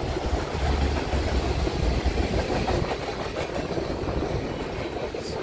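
CPKC freight train cars rolling past: a steady low rumble with the noise of steel wheels on the rails.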